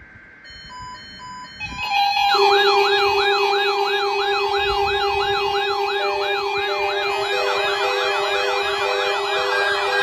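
Many NOAA weather alert radios sounding their alarms together as a weather radio alert test sets them off. A few short beeps start about half a second in, and about two seconds in the rest join: fast warbling siren tones, beeps and a steady tone, all layered.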